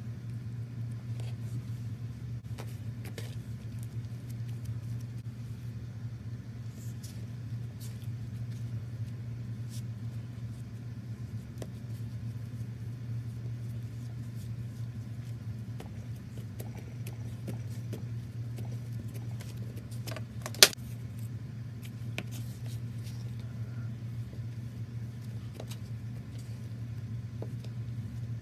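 Slime being squished and pulled apart by hand, giving faint scattered crackles and clicks over a steady low hum, with one sharp loud click about two-thirds of the way through.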